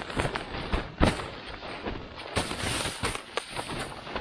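Irregular crunches, rustles and sharp knocks of someone working on a tent in snow, with one louder knock about a second in and a longer scraping crunch a little past the middle.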